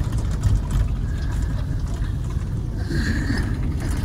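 Steady low rumble of a shuttle minibus running along a road, heard from inside the passenger cabin.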